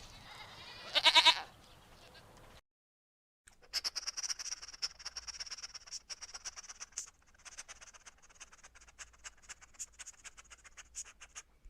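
A single bleat from a farm animal about a second in. After a brief silent gap, a long run of rapid high-pitched chirping and clicking follows.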